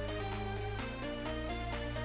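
Electronic background music: a melody of short pitched notes over held bass notes, the bass changing about a second in.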